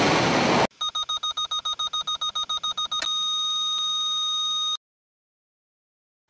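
A rocket launch hiss breaks off, and rapid electronic beeping follows, about nine beeps a second, which about three seconds in becomes one steady high tone: a missile targeting system's lock-on signal, the solid tone meaning target locked. The tone cuts off abruptly.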